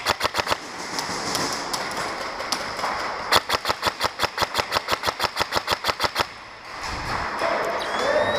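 Airsoft guns firing during indoor play: a short rapid burst at the start, a few scattered shots, then a long steady burst of about ten shots a second lasting roughly three seconds.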